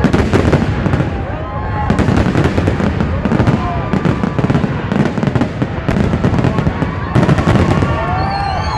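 Fireworks display: a dense run of bangs and crackles from shells bursting, in clusters throughout.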